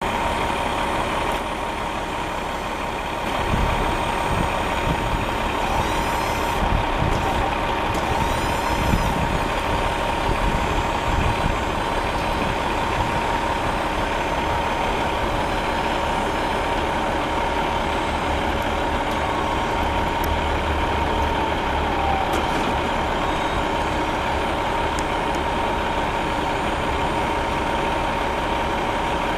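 2006 Ford F450 bucket truck's 6.8-litre V10 engine running, with a steady whine over it.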